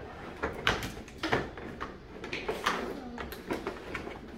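Plastic Play-Doh train playset and its plastic tools being handled, giving a series of short clicks and knocks.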